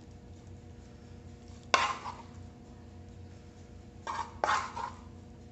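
Wooden spoon knocking and scraping against a nonstick frying pan as shredded chicken filling is scooped out: one sharp knock a little under two seconds in, then a short cluster of knocks and scrapes about four seconds in.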